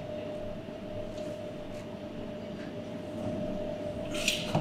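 Steady backstage room noise: a low rumble under a constant mid-pitched hum, with one short sharp hiss about four seconds in.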